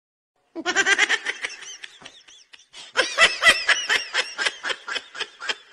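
A person laughing: a fast run of high-pitched 'ha-ha' pulses that starts about half a second in, dies down around two seconds in, and picks up louder again at three seconds.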